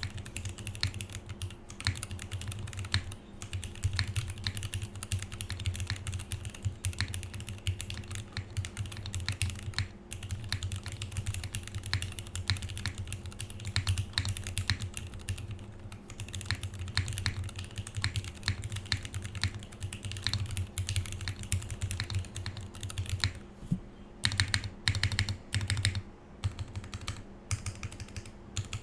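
Fast continuous typing on a full-size LZ Stan mechanical keyboard with lubed and filmed vintage Cherry MX Black linear switches, a plastic plate and GMK doubleshot ABS keycaps, with a bassy table resonance under the keystrokes. Near the end the typing breaks into separate short runs of strokes.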